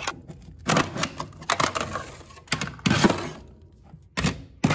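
Cold chisel scraping across a Datsun 240Z's steel floor pan, cracking dry-ice-frozen sound deadener loose: irregular sharp cracks and scrapes in clusters, a short lull a little past halfway, then two loud cracks near the end.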